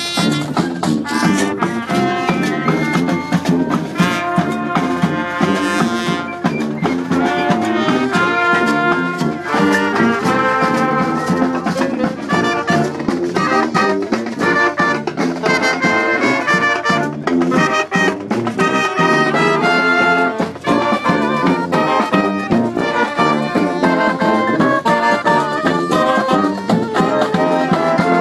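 Street band playing live: brass horns carry a busy, loud tune over drums.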